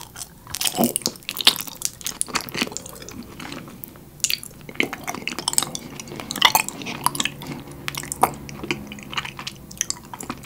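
Close-miked biting and chewing of raw comb honey: the beeswax comb gives irregular sticky, wet clicks and smacks throughout.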